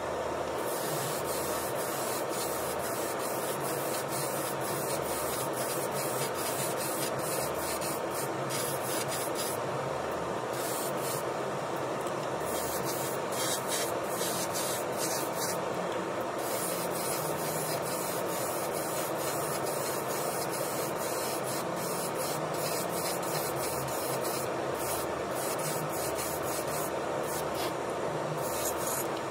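Airbrush spraying paint: a steady hiss of compressed air through the nozzle.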